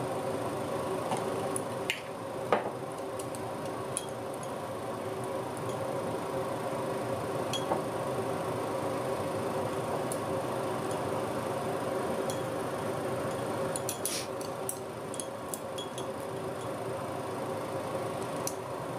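Chopsticks and hands working a glass jar of pickled lotus root: scattered light clinks and taps of chopsticks on glass and a ceramic plate, with a cluster of them near the end, over a steady background hum.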